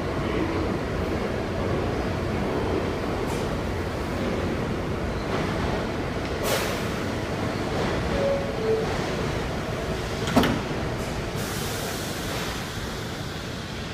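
Siemens R160B subway car standing at the platform with a steady background rumble; a little after eight seconds a two-tone falling door chime sounds, and at about ten and a half seconds the sliding doors close with a sharp thud, followed by a brief hiss.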